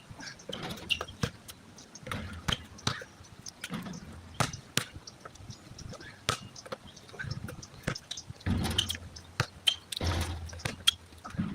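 A basketball bouncing on an outdoor court: scattered sharp, irregular knocks. Gusts of wind buffet the microphone about two-thirds of the way through and again near the end.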